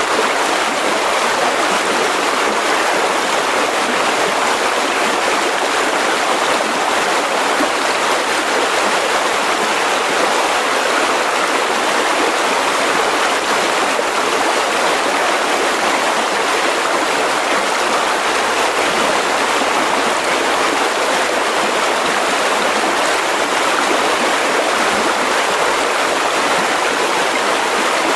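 Mountain river rushing over rocks: a steady, even rush of water with no change in level.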